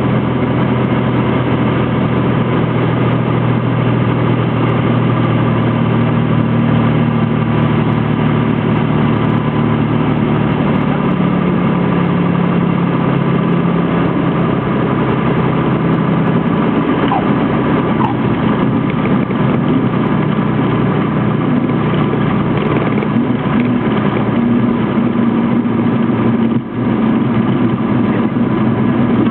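Cessna T182T Turbo Skylane's turbocharged Lycoming six-cylinder engine and propeller running steadily. The engine note shifts slightly about halfway through.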